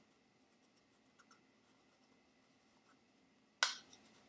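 Quiet handling of a paper-covered cardboard roll as a paper fin is pressed on, with a few faint ticks and then one sharp click about three and a half seconds in, followed by a smaller one.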